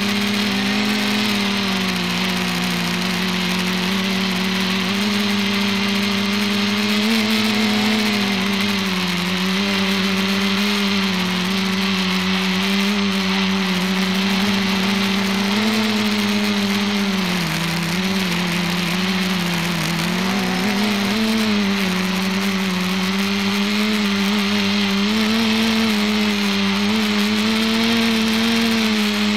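Motors and propellers of an ETFD2 flying-disc R/C multicopter in flight, heard from the camera riding on the craft: a steady buzzing hum whose pitch rises and dips as the throttle changes, sagging lower for a few seconds past the middle.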